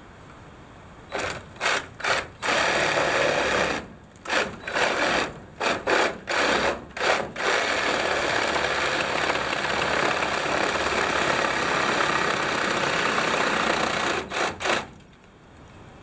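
Reciprocating saw cutting into a wooden beam: a string of short trigger bursts, then a steady cut of about six seconds, ending with two quick blips before it stops.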